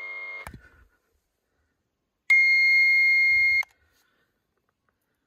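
Handheld cable-tracker probe picking up the tone sent through a robotic lawnmower's boundary wire: a steady buzzy tone that cuts off about half a second in. After a pause, a single loud, clean high beep a little over a second long.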